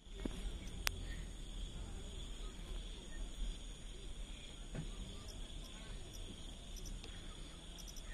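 A steady high-pitched insect chorus, an even buzz, with faint murmuring voices and a low rumble under it. There is a sharp click about a second in.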